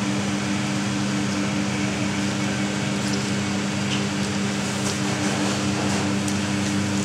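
Steady rush and hum of a kitchen ventilation fan, with a constant low drone underneath.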